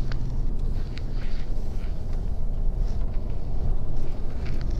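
Mercedes-Benz Actros truck heard from inside the cab while driving: steady engine and road noise, with a few light clicks from the cab.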